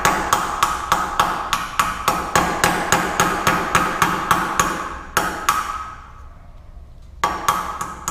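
A hammer tapping a flattened washer into the outlet of a motorcycle's stock exhaust muffler: quick strikes about four a second, each with a short ring. The tapping stops for about two seconds just after five seconds in, then starts again.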